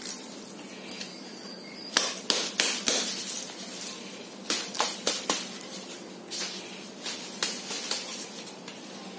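Hand knocking on the sides of a small flowerpot to loosen a money plant's root ball for repotting: a series of sharp taps in irregular clusters, starting about two seconds in.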